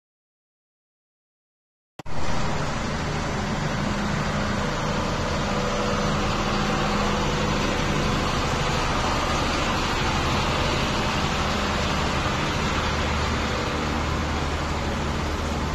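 Total silence for about two seconds, then a steady aircraft engine drone with a low hum that holds even to the end.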